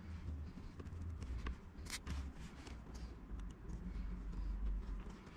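Hands handling thin electrical wires and a small white plastic wire connector, with light rustling and a few small plastic clicks, the clearest about two seconds in, over a low rumble.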